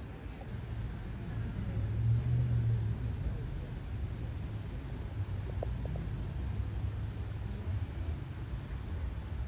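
Steady high-pitched insect chorus, with a low rumble underneath that swells about two seconds in.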